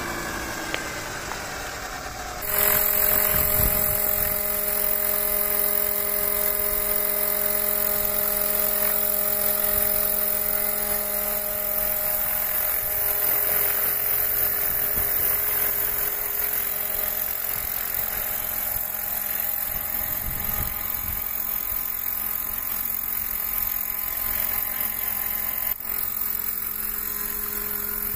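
Roban 800-size Airwolf electric scale RC helicopter running: a steady motor whine over rotor noise, made of several constant tones. It turns suddenly louder and steadier about two and a half seconds in, as the helicopter flies and hovers.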